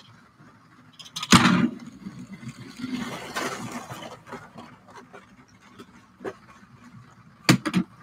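LEGO 60197 passenger train running on plastic track with a steady low rumble, broken by a loud knock of LEGO pieces being handled about a second and a half in and two sharp knocks near the end.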